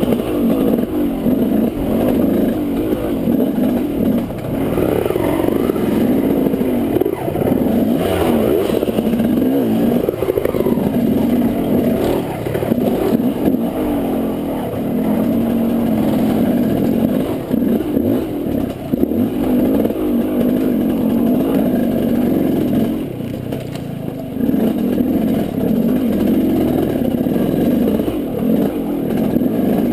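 Two-stroke dirt bike engine, heard close up from a helmet camera, revving up and down continuously as the bike is ridden over rough trail.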